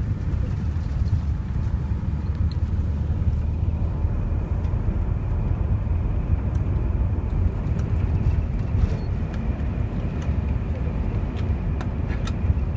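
Steady low rumble of a sleeper bus's engine and road noise, heard from inside the cabin.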